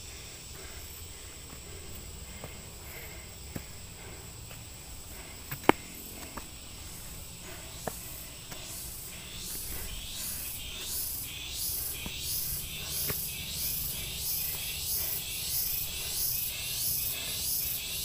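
Insects calling in tropical scrub: a steady high, shrill drone, joined about halfway by a pulsing call of roughly two pulses a second that grows louder. A few sharp clicks, the loudest about six seconds in.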